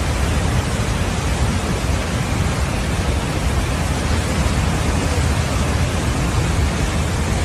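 Steady rushing of a muddy flash-flood torrent carrying debris, loud, with a deep rumble underneath.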